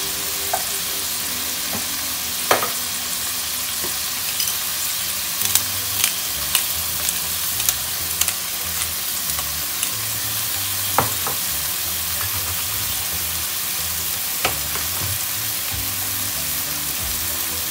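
Chicken breast strips sizzling steadily as they fry in melted butter in a nonstick pan, with scattered light clicks and taps.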